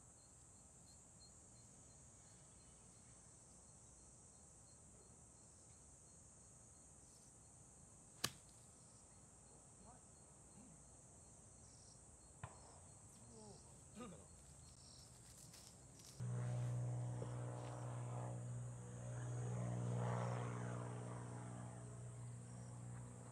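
Insects chirring steadily and high in the background, with one sharp crack about eight seconds in and a couple of fainter clicks after it. About sixteen seconds in a steady low hum starts and becomes the loudest sound.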